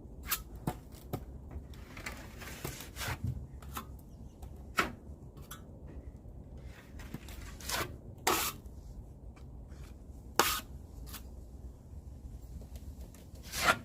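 Drywall taping knife scraping joint compound over paper tape on a seam: irregular short scrapes and clicks, with a few longer strokes.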